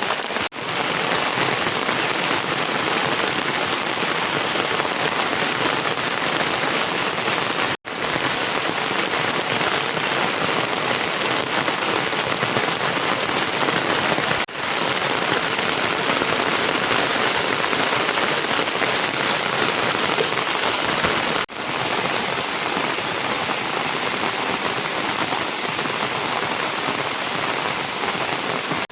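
Steady heavy rain falling, an even, dense hiss of drops with no let-up, broken only by four split-second dropouts.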